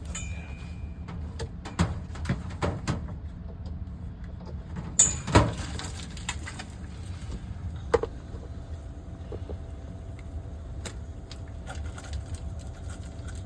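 A few sharp knocks and clatters in the first half, the loudest about five seconds in, as the newly installed sump pump is plugged in and handled. From about halfway through, a faint steady hum from the sump pump running over a low rumble.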